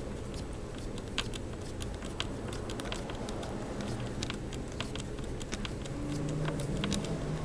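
Irregular small clicks and taps of laptop parts and screws being handled and fitted together, over a steady low hum.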